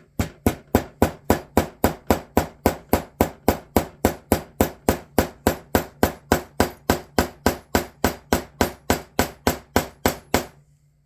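Small hammer tapping a rivet on a small metal anvil, setting it in leather: a long run of light, evenly spaced strikes, about four a second, that stops shortly before the end.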